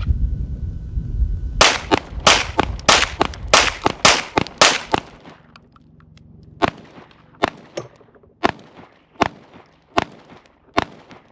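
Pistol gunshots: a rapid string of about eight shots in roughly three seconds, then six quieter, slower shots just under a second apart.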